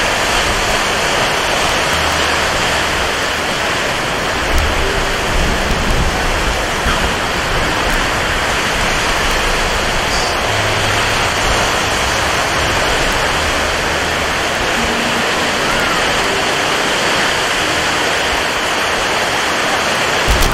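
Steady, heavy rain falling in a forest, with a few brief low rumbles underneath.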